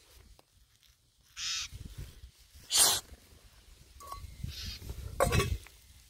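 Four short, harsh, raspy bird calls spread across the few seconds, over a low rumble.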